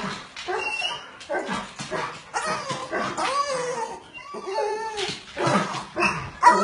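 Bulldog whining and whimpering in a string of short, wavering, pitched cries, a protest at being left out of a walk.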